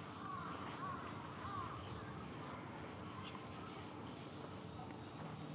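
Outdoor ambience with wild birds calling: a thin warbling call over the first second or so, then a run of short, high, evenly repeated chirps, about three a second, in the second half.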